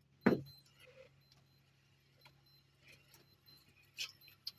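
A single sharp knock just after the start, of a wooden stirring stick against a pot of ugali, followed by faint scattered ticks and clicks, with two sharper clicks near the end.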